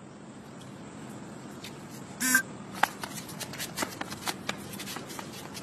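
Steady background hiss; a brief pitched tone a little over two seconds in, then a run of sharp, irregular clicks or taps, several a second.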